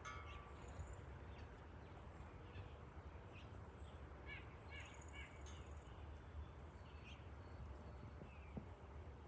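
Faint birds calling outdoors: scattered short high chirps, with a quick run of repeated chirps about halfway through, over a faint low steady rumble.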